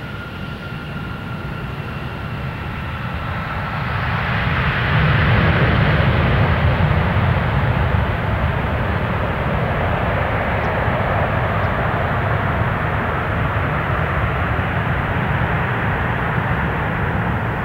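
Airbus A320 jet engines on landing rollout. A faint falling whine just after touchdown gives way about four seconds in to a broad roar that swells and stays loud, typical of the engines spooling up into reverse thrust.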